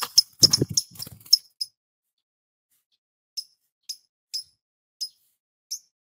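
Lovebird chirping unprompted: a quick run of sharp, high chirps in the first second and a half, then single chirps about every half second from around three and a half seconds in. A brief low sound lies under the first run.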